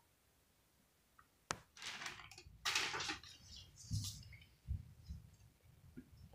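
Kitchen handling noises: a sharp click, then two short bursts of hissing, scraping noise, then a few dull low bumps near the end.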